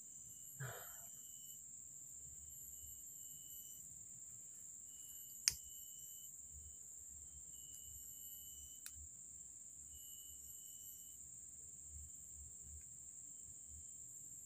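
Steady, high-pitched chirring of crickets in the forest, faint throughout, with a single sharp click about five and a half seconds in and a fainter click near nine seconds.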